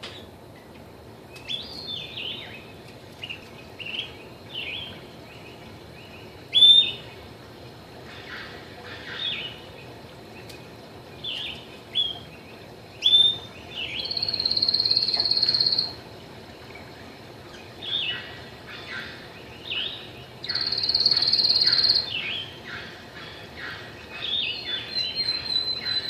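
A male canary singing: short, high chirps and phrases with pauses between, and two long trills held on one high note, one about halfway through and another a few seconds later.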